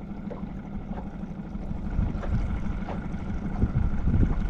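Boat motor running steadily while trolling, a constant low hum, with wind buffeting the microphone in gusts.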